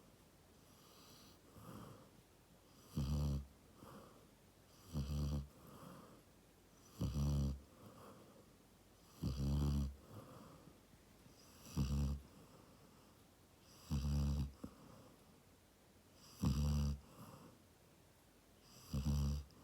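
Snoring: a regular run of loud, low-pitched snores, one about every two to two and a half seconds, eight in all.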